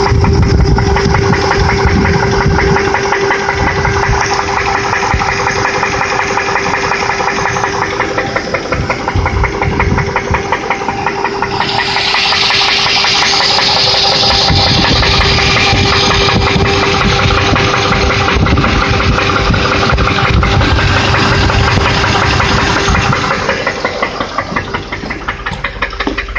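Land Rover Discovery engine running with a rapid, even knocking tick over a steady whine; the owner puts the knock down to an exhaust manifold leak. About halfway through, a hiss grows louder.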